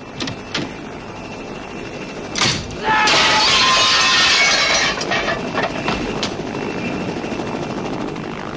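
A sharp hit, then a loud crash of breaking glass lasting about two seconds as a window is smashed with a body going through it, film sound effects from a fight.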